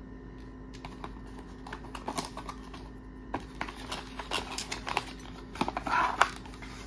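Cardboard packaging being handled: irregular rustles and small clicks as a box insert is lifted and a coiled charging cable is pulled out, busiest and loudest near the end, over a faint steady hum.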